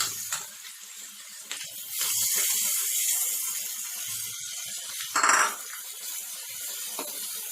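Marinated prawns frying in hot coconut oil: a steady sizzling hiss that grows louder about two seconds in, with a brief louder burst just after five seconds.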